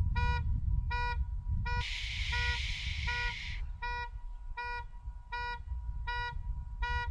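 A series of short electronic beeps repeating about twice a second, each the same pitch, over a steady low rumble. A hiss rises over them for nearly two seconds in the middle.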